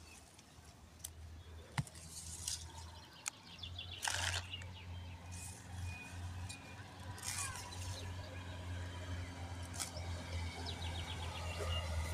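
Pepper plant leaves rustling in short bursts as a hand parts and handles the foliage, with a sharp click about two seconds in. A low steady hum grows louder toward the end.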